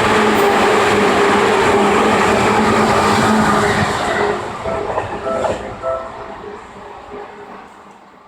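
Seibu 2000 series electric train running over the level crossing close by, loud at first with its wheels clattering on the rails, then fading away from about four seconds in.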